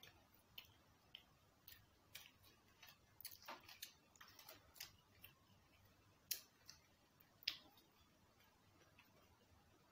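Faint, irregular clicks and mouth smacks of people eating fried chicken and fries close to the microphone, with a couple of sharper clicks past the middle.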